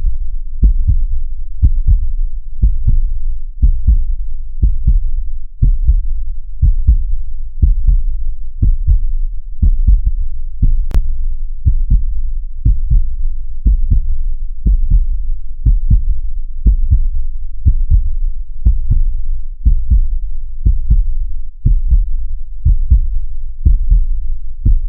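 Heartbeat at about 60 beats a minute: a steady lub-dub, a pair of low thumps about once a second. A single sharp click about eleven seconds in.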